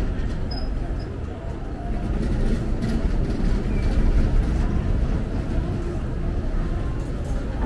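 Steady low rumble of passing vehicles on a city street.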